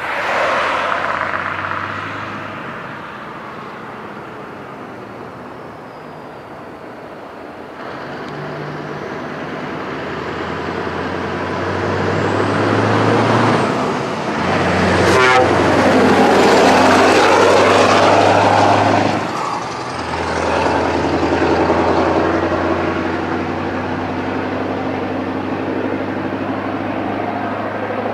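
Scania R620 16-litre V8 diesel running through straight stack pipes as the truck drives past. The engine note builds to its loudest in the middle, dips briefly twice, then settles into a steady deep run.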